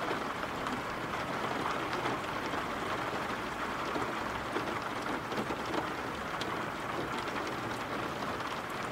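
Steady rain falling: an even hiss with faint drop ticks scattered through it.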